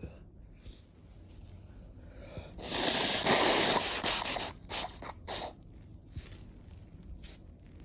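A person's forceful blast of air through the nose, lasting about a second and a half and starting about two and a half seconds in, followed by several short, sharp blasts.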